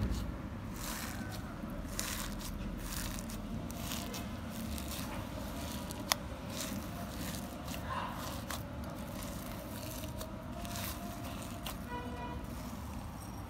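Clear slime loaded with star-shaped glitter sequins being squished and kneaded by hand, giving irregular sticky crackles and pops, with one sharp click about six seconds in.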